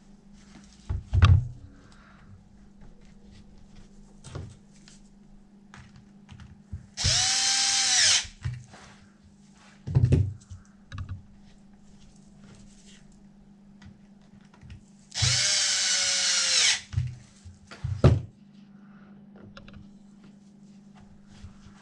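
Power drill spun in two short bursts about eight seconds apart, each winding up and down over a second or so, with several sharp knocks between them.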